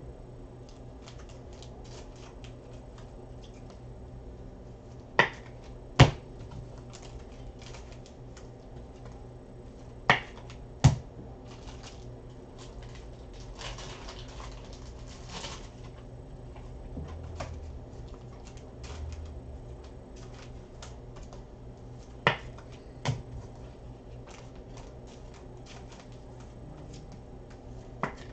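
Light clicking and tapping from hands handling things at a desk, over a low steady hum. Four times a pair of sharp clicks about a second apart stands out above the rest, and there is a brief rustle in the middle.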